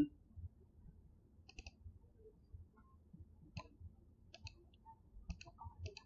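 Faint, irregular clicks from computer mouse and keyboard input, about seven spread unevenly, with a few close together near the end.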